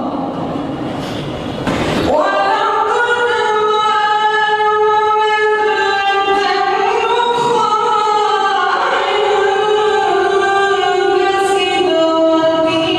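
A male reciter chanting the Quran in the melodic, drawn-out tajwid style, holding long notes that slowly rise and fall. A brief rush of noise comes just before the voice enters, about two seconds in.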